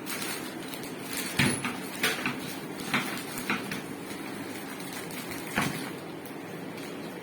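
A handful of irregular knocks and clunks over a steady background hum, the loudest about a second and a half in.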